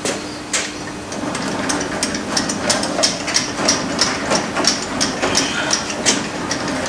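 Hafco Metalmaster lathe carriage being cranked along the bed by its apron handwheel: a regular run of mechanical clicks from the handwheel and rack-and-pinion drive, about three a second.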